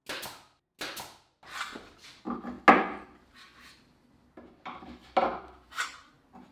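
Screwdrivers set one after another into drilled holes in a plywood rack, their handles and shanks knocking on the wood: a string of about a dozen separate wooden clunks, the loudest a little under halfway.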